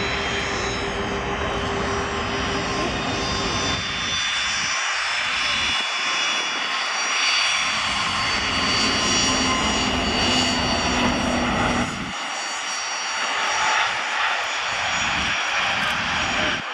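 Emirates Airbus A380's four Engine Alliance GP7200 turbofans at takeoff thrust as the superjumbo accelerates down the runway and lifts off near the end. Steady, loud jet noise with several high, steady whining tones over it.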